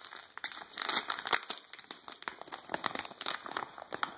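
Yellow padded paper mailer envelope crinkling and crackling as it is handled, in quick irregular crackles.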